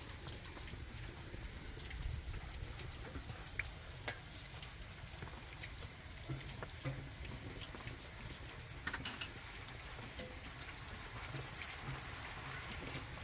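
Open wood fire crackling under a soot-blackened kettle: scattered sharp pops over a steady hiss.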